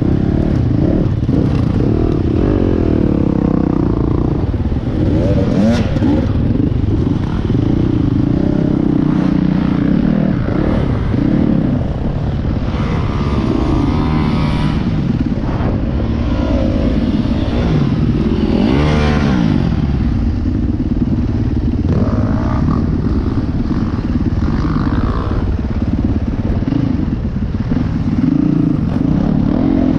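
Dirt bike engine running under way, its revs rising and falling constantly as the throttle opens and closes on a rough track, with sharper climbs in revs near the middle.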